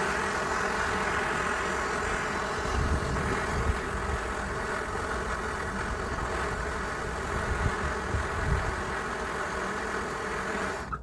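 Hand-held gas torch burning steadily with an even roaring hiss as it heats a seized steel bolt before penetrating oil goes on; the flame cuts off abruptly near the end.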